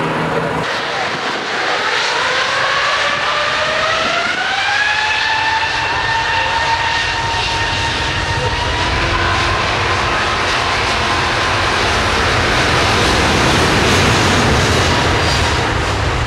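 An Airbus A380's four jet engines spooling up to takeoff thrust, a whine rising in pitch over the first few seconds and then holding steady. A deep rumble builds as the airliner accelerates down the runway and rotates, loudest near the end.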